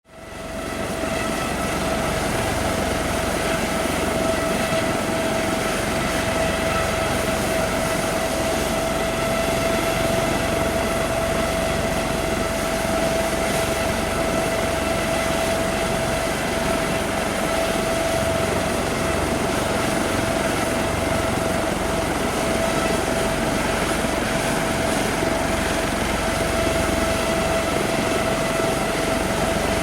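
Helicopter idling: a steady high turbine whine over an even rushing engine noise, fading in over the first second and holding unchanged.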